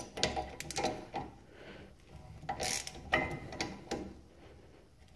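Brake caliper wind-back tool being turned against a rear caliper piston to screw it back into the caliper: metal clicking and scraping in four short spells.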